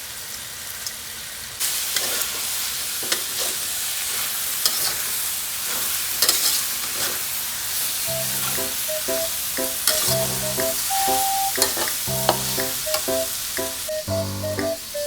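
Minced chicken frying and sizzling in a pan while being stirred, with scrapes and clicks of the utensil against the pan; the sizzle jumps louder about a second and a half in. From about halfway, light background music with a repeating melody plays over it.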